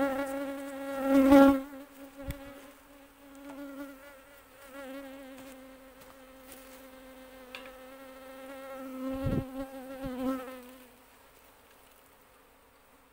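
Asian honeybees buzzing close to the microphone: a wavering hum that swells loudest about a second in and again around nine to ten seconds, then fades away near the end. A couple of dull knocks come about two and nine seconds in.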